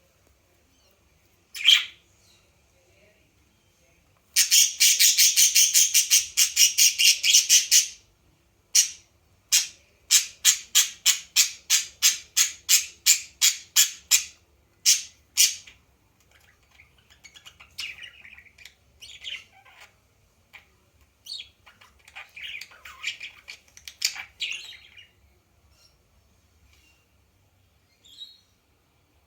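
A bird calling loudly: one short call, then a fast run of harsh squawking notes for a few seconds, then a slower series of evenly spaced notes, then softer, irregular chatter.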